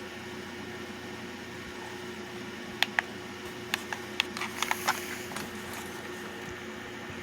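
Clicks from handling the Eton clock radio and pressing its buttons: two sharp clicks about three seconds in, then a quick run of clicks over the next second or so. A steady low hum runs underneath.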